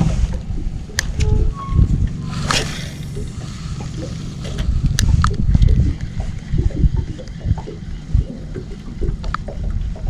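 Water sloshing and lapping over a low, uneven rumble, with a few sharp clicks and a brief rushing swish about two and a half seconds in.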